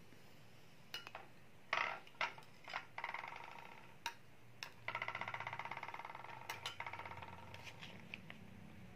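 Quiet kitchen handling: a few soft clicks and taps, and two stretches of a fine, rapid buzzing scrape, a short one about three seconds in and a longer one from about five seconds.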